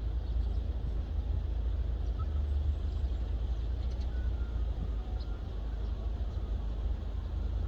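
Steady low rumble with an even background hiss, the kind of outdoor noise a phone or camera picks up at a ballfield; no distinct impacts stand out.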